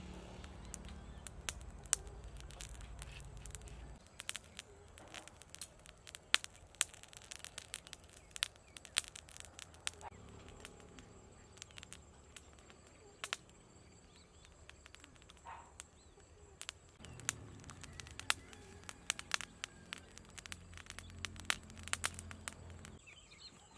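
Small wood fire crackling, with sharp pops scattered irregularly throughout, while a whole fish grills on a wire rack over the flames. A low hum comes and goes underneath.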